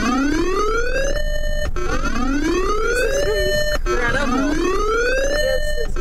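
Electronic siren-style alert tone for a tornado warning: a rising whoop that climbs for about a second, holds briefly and cuts off, repeating about every two seconds, three times over.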